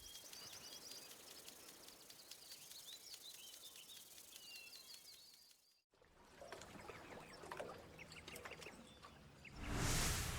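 Outdoor nature ambience sound effect of small birds chirping over a soft background hiss. It drops out briefly a little past halfway, then a similar bird ambience comes back, and near the end a loud whoosh swells in.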